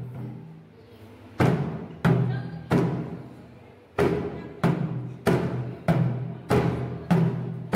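Large double-headed barrel drum beaten in a dance rhythm. Each stroke is a deep boom that dies away. The strokes come about two-thirds of a second apart, with a pause near the start and another in the middle.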